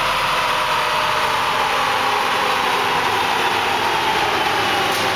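Rear wheel of a 1985 Corvette C4 spinning on a chassis dyno roller and coasting down after a pull: a whine falling slowly in pitch over a steady drone, with the 350 TPI V8 running near idle.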